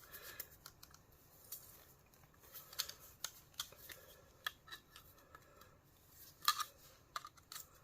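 Scattered small clicks and ticks of plastic and metal parts being handled and pulled apart by hand, the loudest a couple of sharper snaps about six and a half seconds in.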